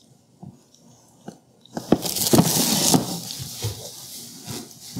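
Plastic packaging wrap rustling and crinkling as it is pulled off a plastic storage box, loudest about two to three seconds in, with small clicks of the box being handled.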